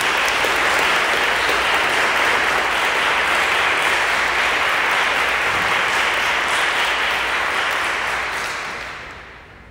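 A small audience's applause, a steady round of hand clapping that fades away near the end.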